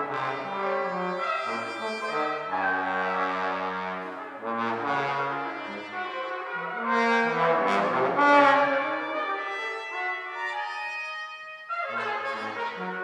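Brass quartet playing a contemporary concert piece: overlapping held notes and short phrases in several voices. The music swells loudest about eight seconds in, thins briefly near the end, then all the voices come back in together.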